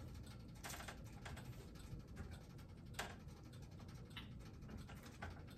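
Metal tongs clicking and scraping on a foil-lined roasting pan as strips of roast pork are turned over: a few light scattered clicks and a short scrape, the sharpest tap about three seconds in.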